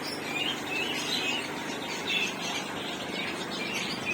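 Caged pet birds chirping and twittering, with many short high calls coming one after another without a break.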